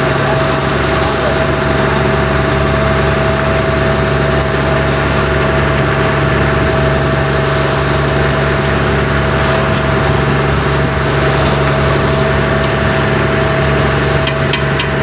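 Fishing boat's engine running at a steady speed with a constant drone.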